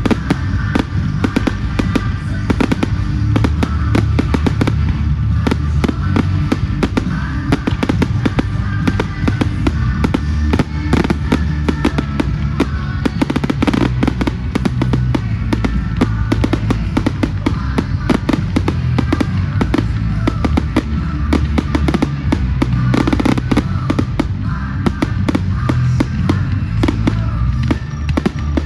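Fireworks bursting and crackling in a rapid, unbroken barrage, over music with a heavy bass.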